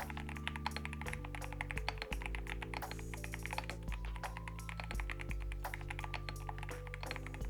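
Rapid typing on an Akko 5075B Plus mechanical keyboard with Akko Dracula linear switches and PBT keycaps, many keystrokes a second in a steady stream. Background music with held low chords plays underneath.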